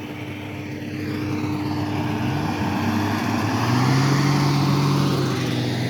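Hovercraft engines and propellers running, rising in pitch and getting louder over the first few seconds as they power up, then holding steady.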